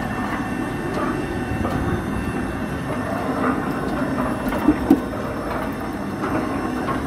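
Beninca Turbo 624 24-volt sliding-gate motor running, driving the gate along its track with a steady mechanical noise. Two sharp clicks close together about four and a half seconds in.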